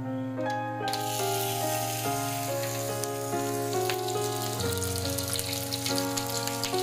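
Sun-dried climbing perch (papuyu) fish jerky sizzling and crackling in hot oil in a wok on low heat. The sizzle starts suddenly about a second in as the pieces go into the oil. Background music plays throughout.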